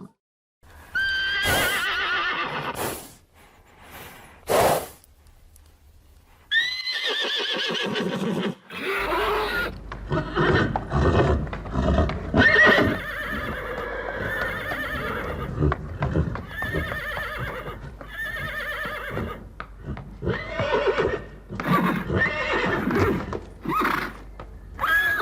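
Horses neighing: a string of loud, quavering whinnies, one after another, with sudden starts where separate recordings are joined.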